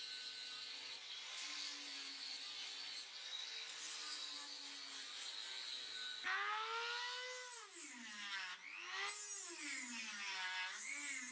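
An angle grinder grinding a metal sword guard, a steady rasping hiss. About six seconds in it gives way to the high whine of a rotary tool with a sanding drum working the metal, its pitch sliding down and back up again and again.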